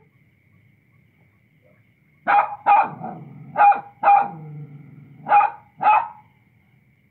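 Small dog barking: six sharp barks in three pairs, starting about two seconds in.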